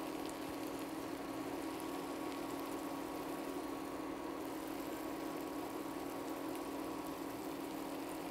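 A steady low hum with a few even overtones, over a faint even hiss of eggs and vegetables frying gently in a pan.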